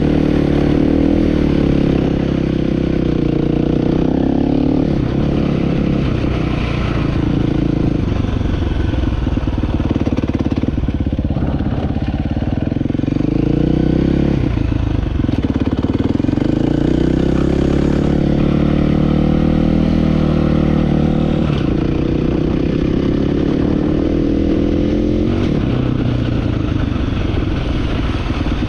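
Dirt bike engine running under throttle through mud, its pitch rising and falling with the rider's throttle. About halfway through it climbs, drops sharply, then climbs again.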